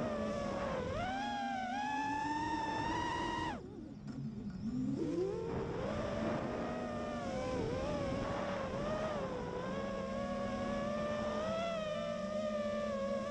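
Alien FPV quadcopter's brushless motors and propellers whining in flight, the pitch rising and falling with throttle. About three and a half seconds in the whine drops sharply in pitch and loudness, then climbs back up a second or two later.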